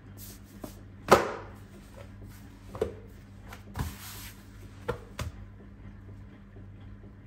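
Scattered knocks and taps on a granite countertop as a sheet of brioche dough is lifted, stretched and pressed down by hand, the loudest knock about a second in, with a brief soft rustle near the middle.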